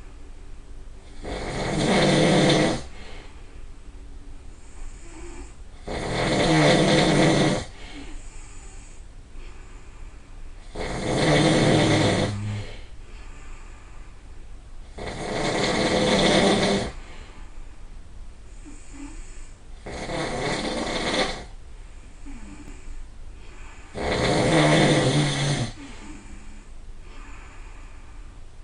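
A person snoring loudly and regularly: six long snores, each about a second and a half, roughly four and a half seconds apart, the fifth a little softer than the rest.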